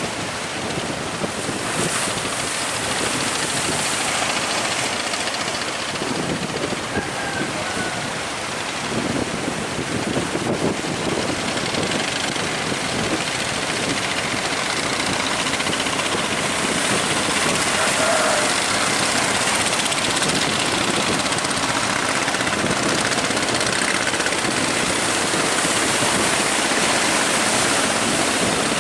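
Steady rushing noise of wind and sea water around a ship in heavy seas, growing a little louder about halfway through.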